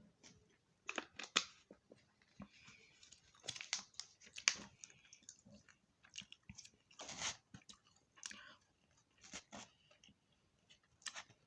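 Close-up chewing and crunching of fried fish and tater tots, in irregular bites and crunches with the loudest clusters about a second in, around four seconds in and around seven seconds in.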